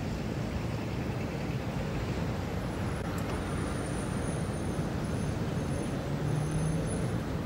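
Street traffic noise: a steady rumble of motor vehicle engines, with one engine's hum standing out briefly near the end.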